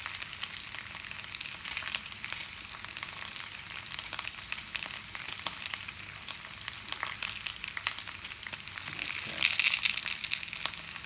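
Thinly sliced potato base frying in olive oil in a cast iron pan: a steady sizzle full of small crackles. It grows louder for a moment near the end.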